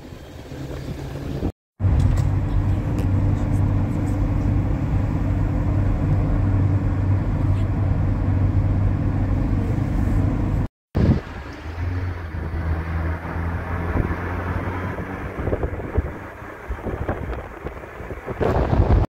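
Car driving along, its engine and road noise a steady low drone, broken twice by short silences where the footage is cut.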